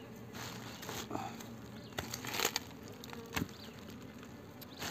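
Bees buzzing in a steady hum around their nest as it is disturbed for its honey. Over it come a few sharp crackles of dry debris as hands rummage in the tree hollow, the loudest a little after two seconds in.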